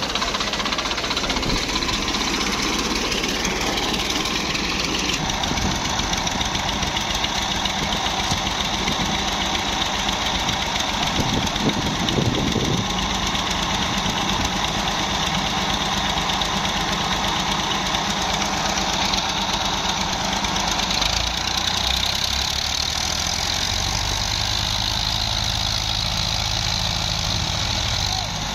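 Massey Ferguson 240's three-cylinder diesel and a second tractor's diesel running hard together as one tractor tows the other with its loaded soil trolley. The low rumble grows deeper about two thirds of the way in.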